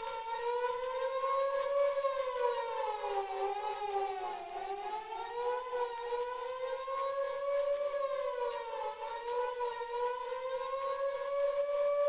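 Fire engine siren from an old 78 rpm sound-effects record, wailing with its pitch sliding slowly up and down and dipping lowest about four seconds in, with added echo.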